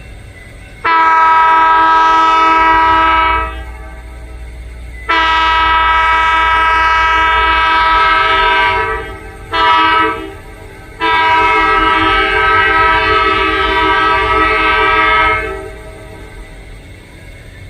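Locomotive air horn sounding a steady multi-note chord in the grade-crossing pattern: long, long, short, long. Under it is a low diesel rumble.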